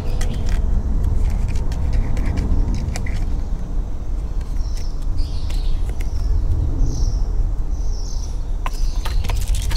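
A steady low rumble, with a small bird chirping repeatedly in short calls through the middle and a few sharp clicks near the end.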